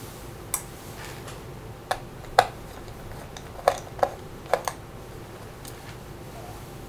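Small Phillips screwdriver working the battery screws in an opened laptop's chassis: about eight light, irregular clicks and taps of the tool against the screws and metal frame.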